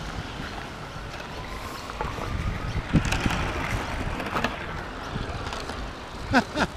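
Rolling rumble and clatter of a gauge 1 garden-railway train's wheels on the track, heard from on board with wind on the microphone, with a few sharp clicks over the rail joints.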